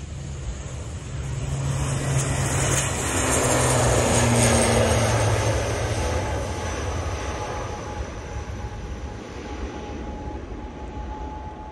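High-wing twin-turboprop airliner on its takeoff run at full power: a steady propeller drone with turbine whine that swells as it passes, loudest about four seconds in, then fades as it lifts off and climbs away.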